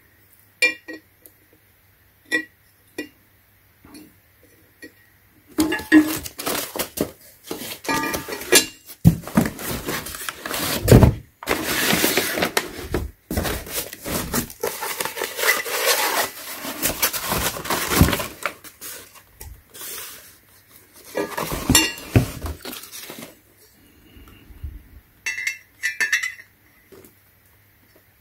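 Painted steel tire-changer parts clinking and knocking against each other as they are handled, with the rustle and scrape of packing paper and cardboard as wrapped tubes are pulled from the box. Scattered light clicks at first, then a long busy stretch of handling noise in the middle.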